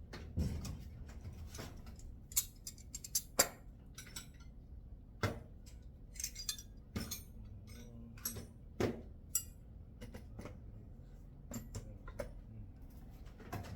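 Metal wrenches and small metal parts clinking and clattering as they are handled and set down: a scattered string of sharp clinks.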